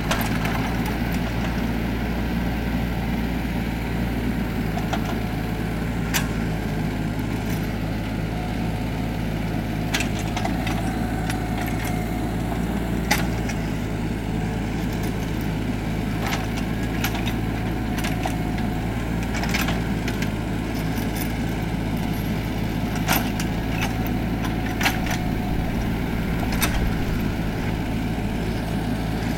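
Mini excavator's diesel engine running steadily under load while it digs and pries at hard laterite soil, with scattered sharp knocks of the bucket striking hard ground every few seconds.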